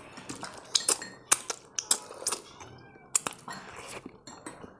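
Close-miked eating sounds of someone chewing a steamed momo: irregular sharp clicks and smacks, a few of them close together.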